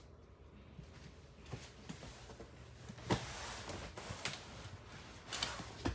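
Sofa-bed cushions being pulled off and handled: soft rustling and bumps, with a sharper knock about three seconds in, over a low steady hum.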